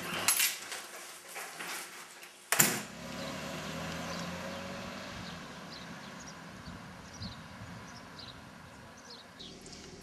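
A door being opened with hurried movement, then a sharp bang about two and a half seconds in. After it, steady street ambience follows: traffic passing and many short bird chirps.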